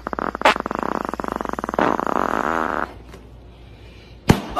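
Air let out through the stretched neck of a rubber balloon, a rapid fart-like buzz that wavers in pitch and dies away about three seconds in. A single short sharp knock near the end.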